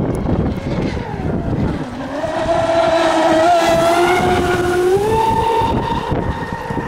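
Electric drive of a radio-controlled speedboat on the water giving a steady whine with overtones, which steps up to a higher pitch partway through as the throttle is raised.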